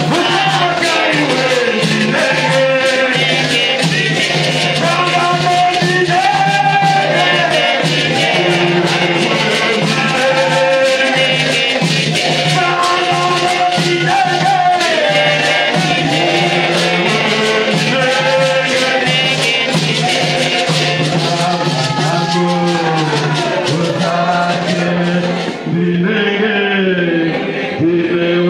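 A man singing into a microphone over a steady shaking rattle beat from shakers; the shakers stop near the end while the singing carries on.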